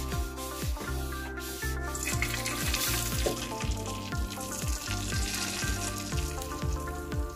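Beaten egg sizzling as it is poured into a hot oiled rectangular egg pan, the sizzle starting about two seconds in, under background music with a steady beat.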